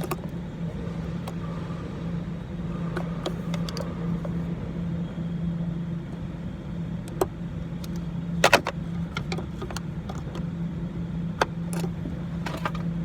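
Hand tools clicking and knocking on car parts during work at the wheel, with a short clatter of metal about eight and a half seconds in, over a steady low hum.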